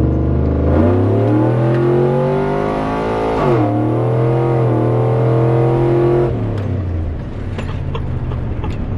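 6.0-litre LS V8 in a Trailblazer under hard acceleration, heard from inside the cabin: the engine note climbs steadily, drops with an upshift about three and a half seconds in, climbs again, then falls away as the throttle is let off about six seconds in.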